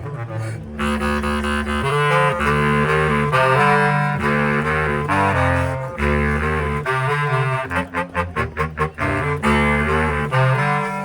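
Bass clarinet quartet playing: low sustained bass notes under moving upper lines, with a quick run of short, detached notes about eight seconds in.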